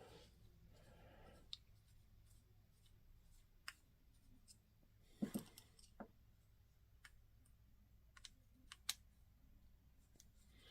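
Faint, scattered clicks and light taps of small metal parts being handled as a motorcycle fuel petcock is taken apart by hand, with the sharpest cluster about five seconds in.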